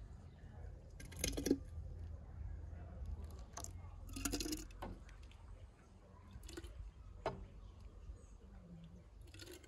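Steel ladle clinking and scraping against a metal basin and the rim of a glass jar as strawberry jam is scooped and poured into the jar, several scattered clinks with wet sounds of the jam.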